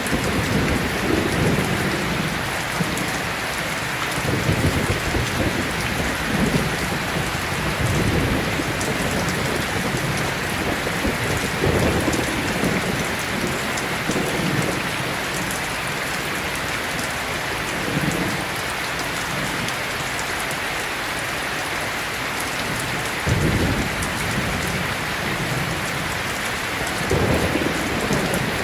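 Heavy, steady rain hissing, with low rolls of thunder swelling and fading every few seconds throughout, the strongest rumbles near the end.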